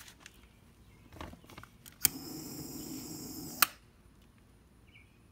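A torch lighter clicks, hisses steadily for about a second and a half while lighting a fire-starter cube on an oak split in the smoker's firebox, and clicks off.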